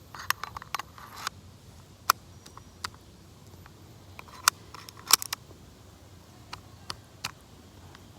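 Plastic and metal parts of a field-stripped Echo1 TAP airsoft pistol being handled: a brief scrape, then irregular sharp clicks and taps, with the loudest about two, four and a half and five seconds in.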